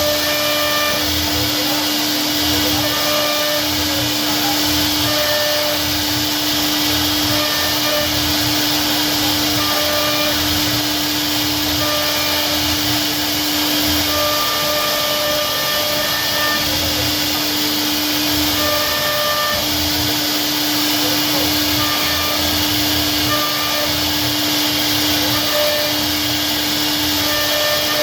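CNC router spindle running steadily while carving wood, a constant whir with a steady hum underneath. Short higher tones come and go every second or two.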